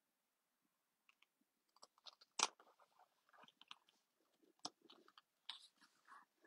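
Faint crinkling and scattered clicks of paper and card stock being handled and pressed into place, with two sharper clicks, one a little before the middle and one past it.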